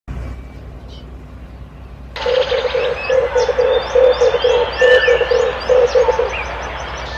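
Red turtle dove calling: a rapid, rolling series of low cooing notes that starts abruptly about two seconds in. It is a lure recording, with small birds chirping in quick high notes over it.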